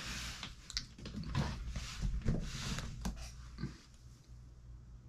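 A stack of books picked up and lifted: soft rustling and shuffling with a few light knocks, dying away about three and a half seconds in.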